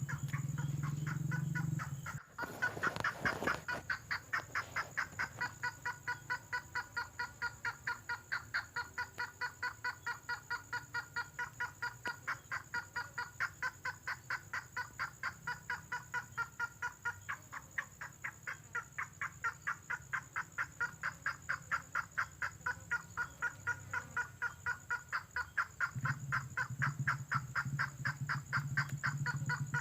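Tengkoah merah bird call played as a lure recording: a long run of quick, evenly repeated notes, about three a second, with a low hum underneath at the start and again near the end.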